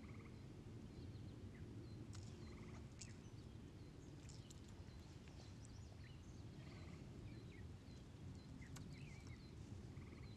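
Near silence: faint outdoor ambience with a steady low rumble, scattered faint bird chirps and a few soft clicks.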